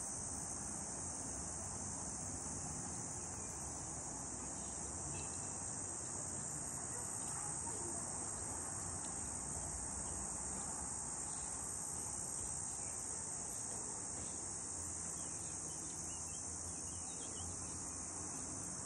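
Insect chorus: a steady, high-pitched, unbroken chirring over faint low background noise.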